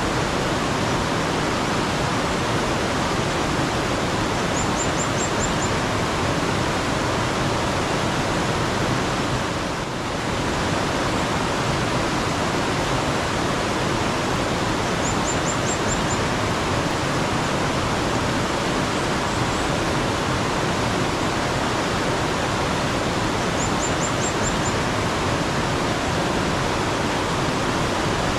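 Steady, loud rush of running water, with a bird's quick run of five or six high chirps heard three times, roughly every ten seconds. The water sound dips briefly about ten seconds in.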